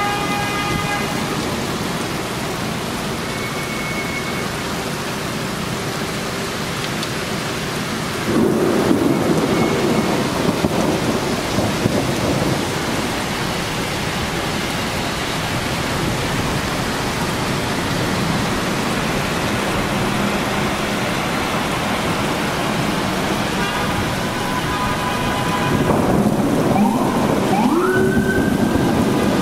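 Steady heavy rain, with a rumble of thunder starting suddenly about eight seconds in and lasting several seconds. Near the end a siren wails, rising in pitch.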